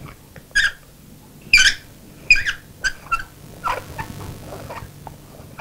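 Wooden screw cap on an antique chisel handle being unscrewed by hand, its timber threads giving a series of short squeaks.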